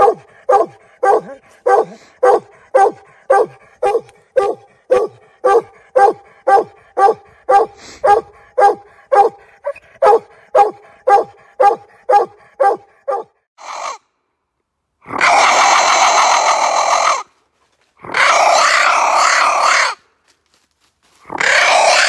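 A dog barking in a steady rhythm, about two barks a second, each bark dropping in pitch. The barking stops about 13 seconds in. Three loud sounds follow, each about two seconds long, with short pauses between them.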